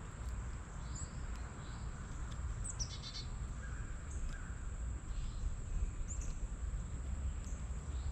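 Wild yard birds calling in short chirps, scattered about once a second, over a steady low rumble.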